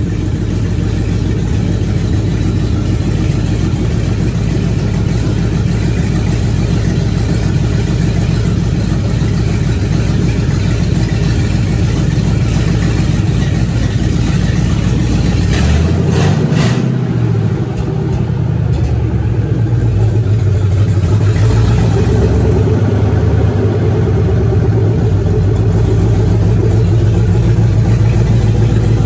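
GM 8.1-liter Vortec big-block V8 running just after its first start in the swapped truck, idling steadily. About halfway through there is a sharp click and the engine speed rises briefly, then it settles back to idle.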